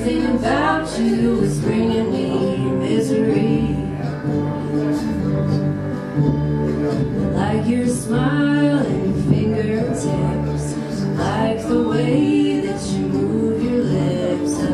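Live acoustic folk band playing: a strummed acoustic guitar and an upright bass, with singing over them.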